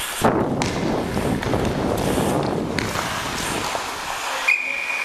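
Ice skates scraping and gliding on the rink, heard from a helmet camera with wind rush on the microphone and a sharp click about three seconds in. Near the end comes a short, steady high whistle tone.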